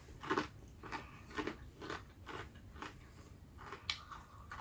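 Close-up chewing of crunchy fried peas, a crunch roughly every half second.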